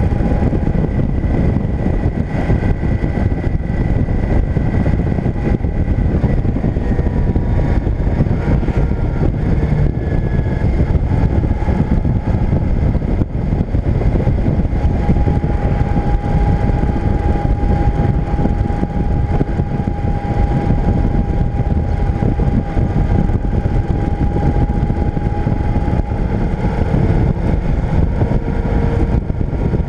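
Motorcycle cruising at steady speed: a constant rush of wind and road noise on the microphone, with the engine's faint steady tone drifting slowly up and down in pitch.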